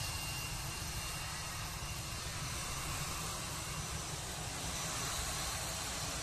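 Jet engines of a Citilink Airbus A320 running at low taxi power as the airliner rolls slowly past close by: a steady rumble with a hiss over it and a faint high whine.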